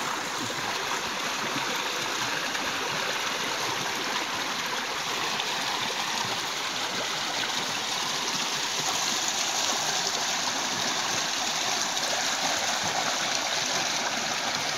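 Muddy floodwater rushing out of a concrete culvert and splashing around a man's legs and a push net held in the current. It is a steady rush that grows a little louder after the middle.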